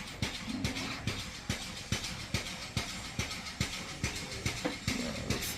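Rapid, evenly spaced hammer blows in a blacksmith's workshop, about four a second.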